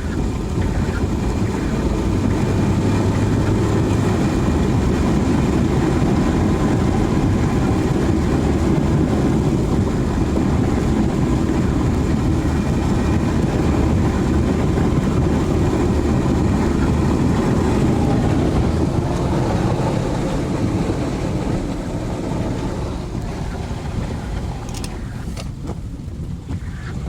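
A car driving along a rain-wet road, a steady rumble of engine and tyre noise, easing slightly in the last few seconds, with a couple of faint clicks near the end.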